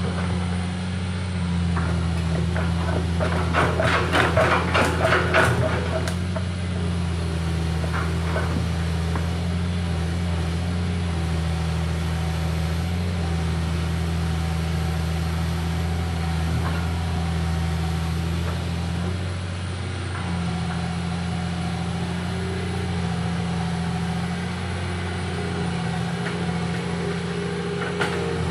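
Mini excavator's diesel engine running steadily, with a run of rapid metallic clattering about three to six seconds in and a shorter one near eight seconds.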